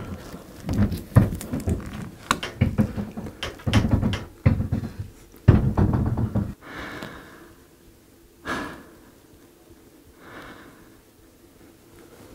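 Repeated knocks, clunks and rattles as a large flat-screen TV is worked onto the metal arms of a full-motion wall mount. The sounds come thick for about six seconds, then it goes quieter, with one more sharp knock past the middle.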